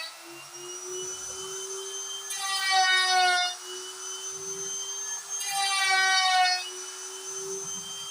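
DIY CNC router carving wood: a steady motor whine, joined about every three seconds by a louder whine from the stepper-driven moves lasting about a second and sinking slightly in pitch.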